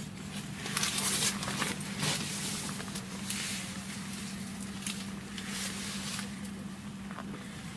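Rustling and crinkling from hands and clothing handled close to the microphone while a small ice jig is baited, in uneven swells, over a steady low hum.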